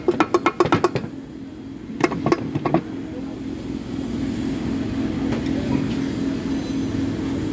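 Rapid metallic clicking, a ratchet wrench worked on the crankshaft of a stripped Nissan Sunny engine block that the mechanic calls seized, in two quick runs in the first three seconds. A steady mechanical hum runs underneath.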